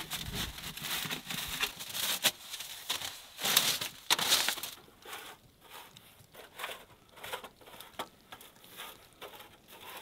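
Rustling and crunching handling noise as metal wood-stove chimney pipe is fitted and moved, with many short clicks and taps, loudest and busiest about three to four and a half seconds in, then thinning to lighter scattered clicks.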